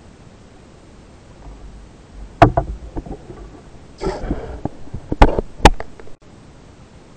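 A band-powered speargun fired underwater, heard through an action camera's housing: a loud sharp click about two and a half seconds in, a short rush of noise a little later, then two more loud sharp clicks near the end.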